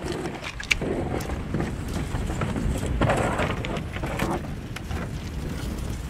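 Loaded canoe hull grinding and scraping over river-bank gravel as it is dragged to the water in several pulls, with stones clicking under it, over the steady rush of a fast river and wind.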